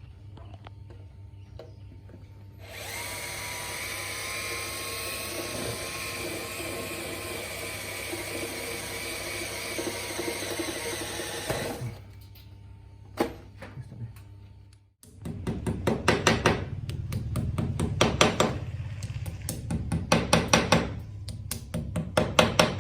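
A power drill runs steadily for about nine seconds with a faint, slowly rising whine. After a short pause, a louder rapid rattling follows in several bursts.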